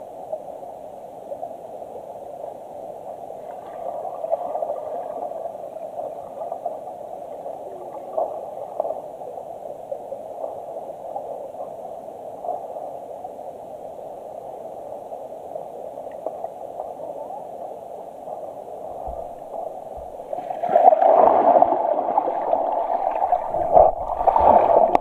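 Stream water flowing, heard muffled through a camera housing submerged in the stream: a steady, narrow hiss. About twenty seconds in it turns louder and rougher, with knocks and rumbles as the camera is moved against the stream bed.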